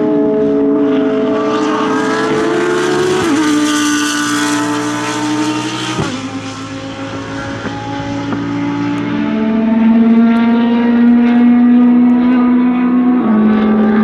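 Lamborghini Huracán GT3 race car's V10 engine running hard on track. The note drops in pitch in several sudden steps and grows louder in the second half.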